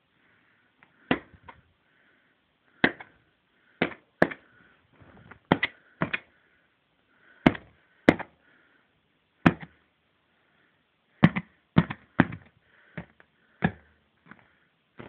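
Hands handling an inflatable vinyl toy, with a string of about fifteen short, sharp knocks and snaps at uneven intervals, roughly one a second.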